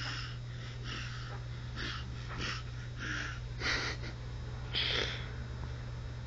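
Short breathy puffs and sniffs of breath, one or two a second, the two strongest near the end, over a steady low electrical hum.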